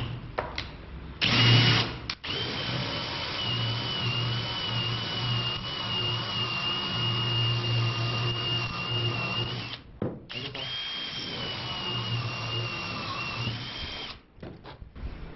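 Electric drill running in three goes: a short burst, a long run of about eight seconds, then a shorter run. Its motor whine holds a high, slightly wavering tone.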